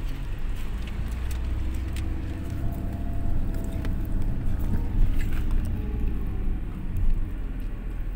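Steady low rumble of a car driving slowly, engine and road noise heard from inside the cabin, with a few small clicks and rattles.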